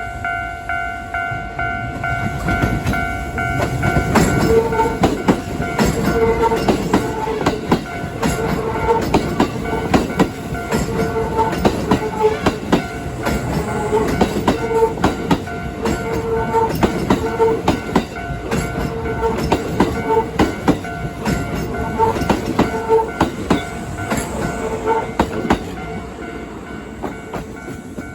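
Kintetsu 8600-series electric train passing over a level crossing, its wheels clattering over rail joints in a run of paired clacks that starts about four seconds in and fades near the end. The crossing's warning bell rings throughout, plainest at the start.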